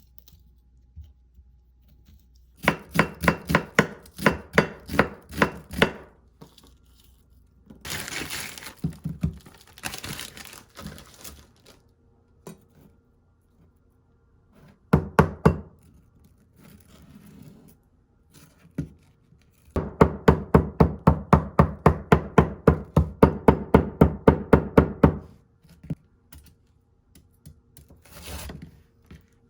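Knife chopping food on a cutting board in quick, even strokes. A run of about four chops a second comes a few seconds in, and a faster run of about six to seven a second comes later, with some scraping and scattered knocks between them.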